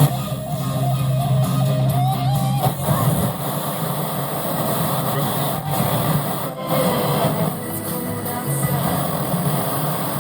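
Guitar music played through a Sansui 2000 stereo tuner-amplifier and its speakers while the receiver is tested.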